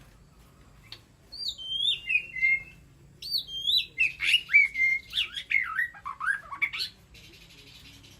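White-rumped shama singing: clear whistled phrases with notes sliding up and down, starting about a second in, then a louder, faster run of sliding whistles that ends in a few rising notes near the end.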